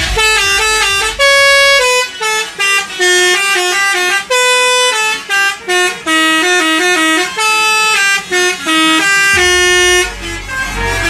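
Bus 'telolet' musical air horn playing a quick tune: a string of short stepping notes with a few longer held ones, stopping near the end.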